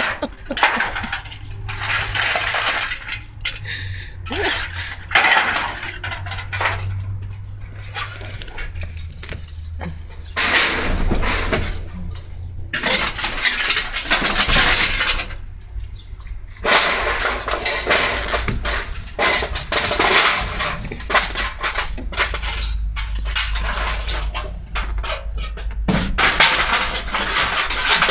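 Thin sheet-metal scrap being handled and tossed down, with repeated irregular clanks and rattles over a low steady hum.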